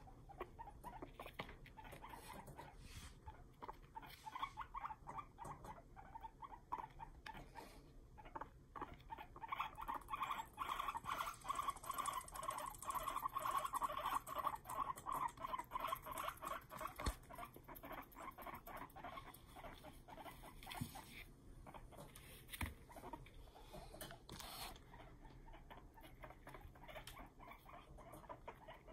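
Guinea pig teeth chattering: rapid runs of sharp clicks, loudest about halfway through. Chattering is an angry guinea pig's warning, here one boar aimed at another.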